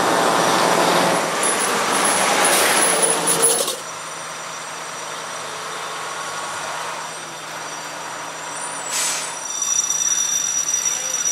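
Heavy truck with air brakes: loud running noise with a high brake squeal that cuts off suddenly a few seconds in, then a quieter stretch and a short air-brake hiss near the end.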